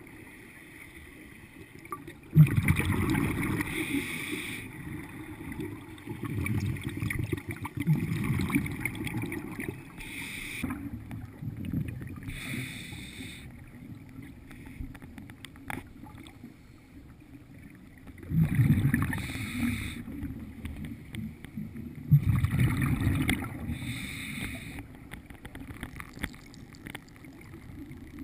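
Scuba regulator breathing heard underwater: the diver exhales about four times, each breath a long bubbling rush of air. Between them come a couple of shorter hissing breaths.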